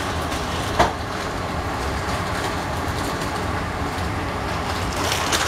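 A plastic pasta fork knocks sharply against a stainless steel colander about a second in, and lightly again near the end, while pasta is lifted out. Under it runs a steady rushing noise.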